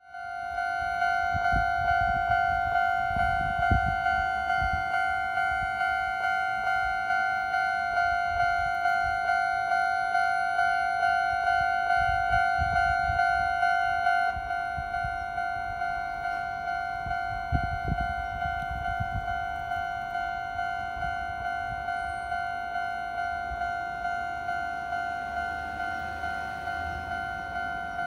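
Japanese railway level-crossing alarm ringing: an electronic bell repeating the same ding at a steady, even rate, the warning that a train is coming. About halfway through it becomes quieter and duller. Brief low rumbles sit underneath.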